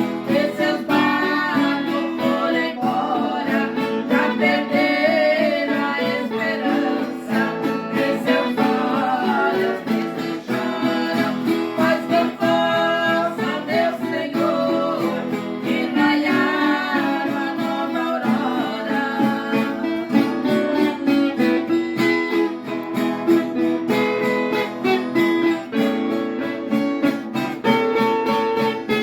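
Acoustic guitar strumming with a voice singing a worship song over it.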